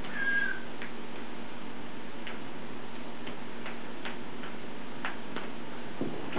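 A blue-fronted Amazon parrot gives one short, slightly falling squeak about a third of a second in. Scattered light clicks follow at uneven intervals over a steady low hum.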